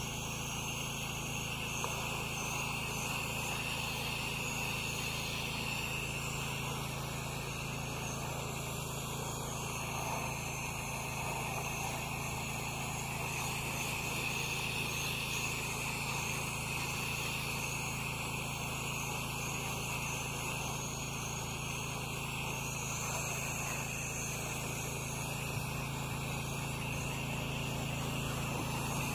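Pressure washer running steadily: the hiss of the spray gun's wide fan of water hitting metal siding, over a constant low engine drone from the pressure-washing rig, while the cleaning mix is applied before the rinse.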